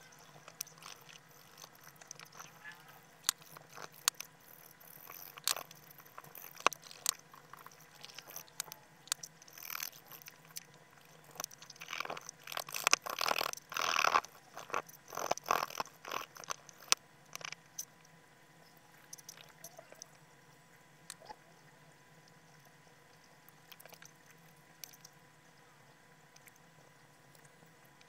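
Polishing paste being rubbed over a metal coin with a cloth-wrapped polishing stick on a wooden table: scratchy rubbing strokes and small clicks, coming in a dense flurry about halfway through, then thinning out to occasional light scrapes.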